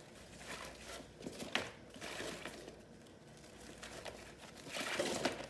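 Fabric ribbon rustling and crinkling as it is pulled off a spool and gathered into loops, with a few sharp crackles and a louder rustle near the end.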